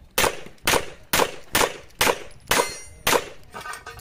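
Handgun firing a fast string of about seven shots roughly half a second apart. Near the end come fainter strikes with a metallic ringing, as steel targets are hit.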